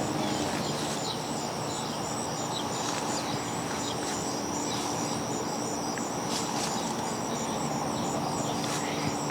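Steady backyard ambience of insects trilling: a continuous high-pitched buzz with a faster pulsing layer above it, over a low steady hum.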